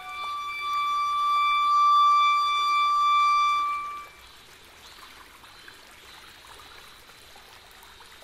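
Solo clarinet holding one long high note for about four seconds, swelling louder toward the middle, then breaking off abruptly into a rest.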